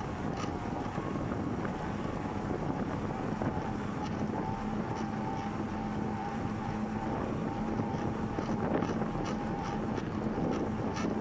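Wind rushing over the microphone of a bicycle-mounted 360° camera while riding, together with the tyres rolling on pavement. A faint steady hum runs underneath.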